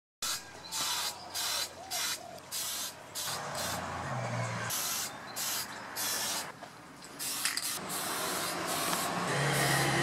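Aerosol spray-paint can spraying, a hiss in short bursts about every half second at first, then in longer, steadier passes.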